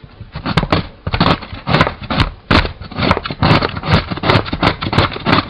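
Cucumber being grated on a large metal grater: quick repeated rasping strokes, about two to three a second.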